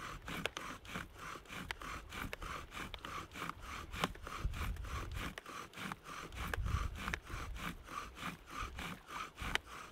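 Bow drill fire-starter worked at a steady pace: the wooden spindle grinds in the fireboard with a rasping stroke each time the bow goes back and forth, in a quick, even rhythm. This is the drilling that builds up a smouldering coal in the notch.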